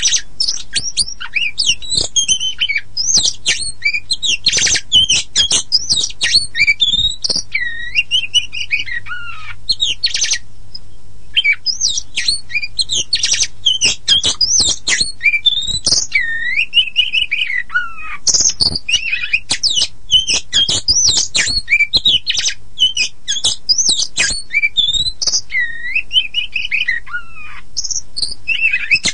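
Oriental magpie-robin (kacer poci) singing a long, varied song of rapid chirps, rattles and whistles that slide downward, with a short pause about ten seconds in. It is a song recording used to lure captive magpie-robins into singing.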